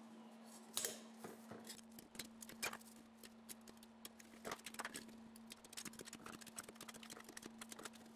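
Thin steel plates of 1084 and 15N20 clicking and clinking faintly and irregularly as they are laid on one another by hand into an alternating-layer stack. A steady low hum runs underneath.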